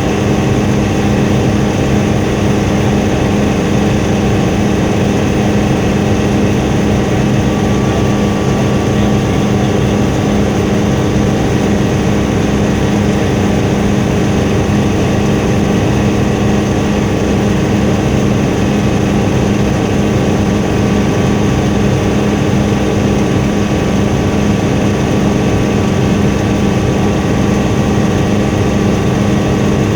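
Helicopter engine and rotor running steadily in flight: a loud, unchanging drone with a steady low hum.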